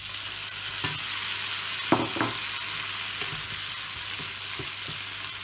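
Diced fresh tomatoes dropped into hot olive oil and onions in a frying pan, sizzling steadily as they are stirred with a wooden spatula. Two knocks about two seconds in.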